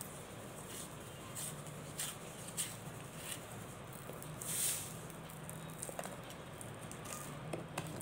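A paper cup being peeled and torn off a cup-moulded mothball cake, with scattered crackles and clicks as the paper gives and the crystals crumble, and one longer tearing rip about halfway through.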